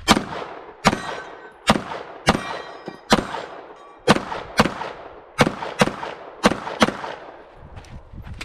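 Semi-automatic pistol firing about eleven shots, each followed by a short ringing echo: at first single shots a little under a second apart, then quicker pairs of shots near the end.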